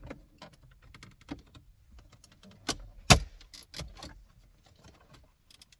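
Plastic interior trim panels and their clips being worked loose by hand: an irregular run of clicks, knocks and small rattles, the sharpest click about three seconds in.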